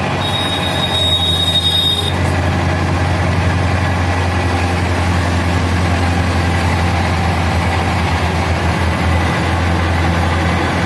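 Engine of a tractor-mounted water-well drilling rig running steadily with a deep hum, and a high steady whine for about the first two seconds.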